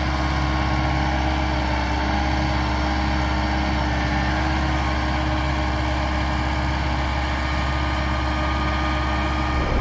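An engine running steadily at constant speed, with no revving.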